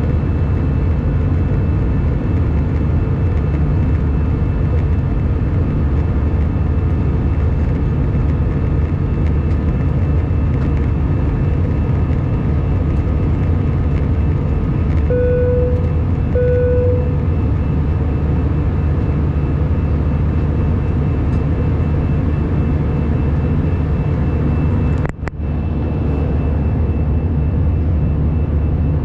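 Airbus A319 cabin noise heard from a window seat over the wing: the steady low roar of the engines and airflow, with a faint high whine. Two short, identical low beeps sound about halfway through, a second apart, and the noise dips briefly near the end.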